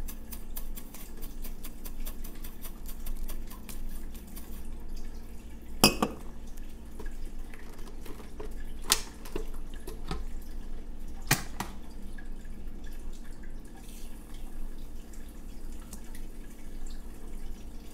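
Bar-top handling sounds: quick gritty scratching as a glass rim is worked in a tub of salt, then a few sharp knocks of glassware and the blender pitcher on the counter, the loudest about six seconds in.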